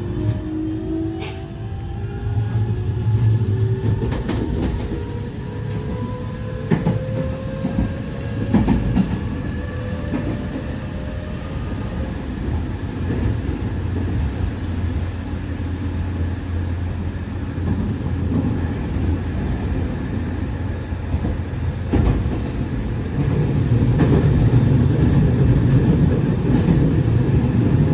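JR West 207 series electric train with a Toshiba GTO inverter, accelerating. Several inverter tones climb slowly in pitch for about the first twelve seconds over the running noise and clicks of the wheels on the rails. The running noise grows louder near the end. This set's inverter sound is called abnormal, its acceleration tones shifted compared with other sets.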